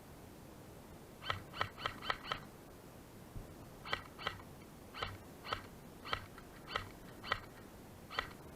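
A bird's short, high-pitched calls repeating: a quick run of five, then single calls and pairs about half a second apart.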